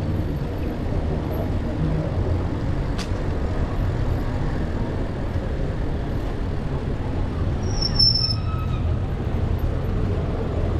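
City street traffic and wind rumble heard from a moving bicycle, steady throughout. A single sharp click comes about three seconds in, and a brief high-pitched squeal about eight seconds in.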